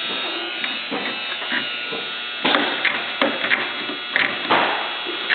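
Steady electric hum under a handful of sharp clicks and knocks, the sound of small metal parts and tools being handled on a bench.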